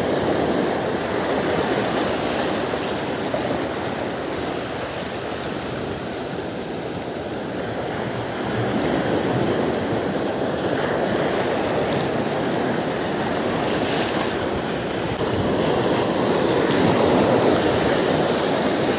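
Small sea waves breaking and washing up the shore: a steady rush of surf that swells louder a couple of times and eases between.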